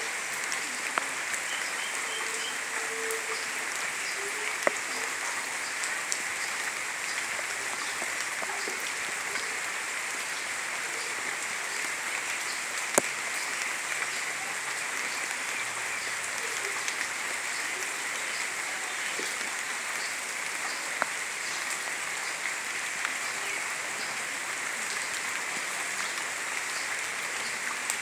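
Steady heavy rainfall, a dense even hiss with scattered sharper drop impacts, one louder knock about halfway through.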